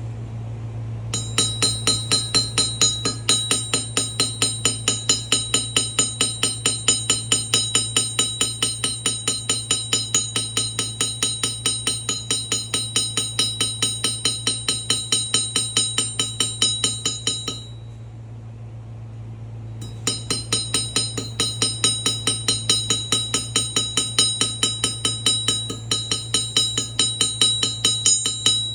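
A bell struck rapidly and evenly, ringing in two long runs with a pause of about two seconds between them, over a steady low hum.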